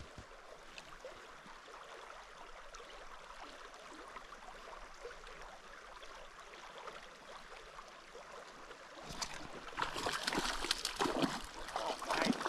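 Steady soft rush of the Owens River flowing past the bank. From about nine seconds in, a louder, rough noise with short crackles comes in over it.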